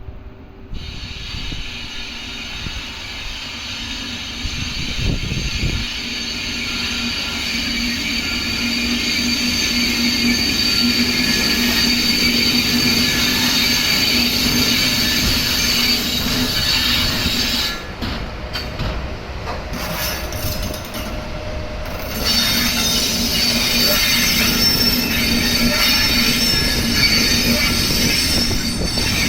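Steel railway wheels squealing against the rails as a train moving the EF81 electric locomotive rolls by, a steady high screech over a low rumble. The squeal drops out for a few seconds about two thirds of the way in, then comes back.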